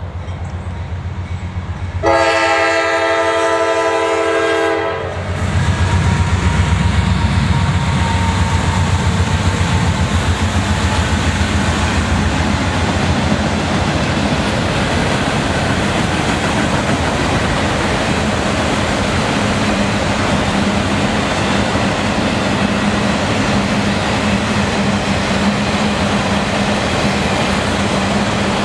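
Freight train passing close by: the diesel locomotives' air horn sounds one loud blast of about three seconds, a little after the start. The engines then rumble past, followed by a long string of autorack cars rolling by with steady clacking wheel noise on the rails.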